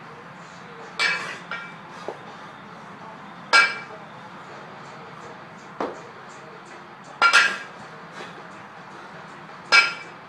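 18 kg kettlebell clinking during long-cycle clean-and-jerk reps: four sharp, ringing metal clinks in pairs about two and a half seconds apart, with a few duller knocks between them.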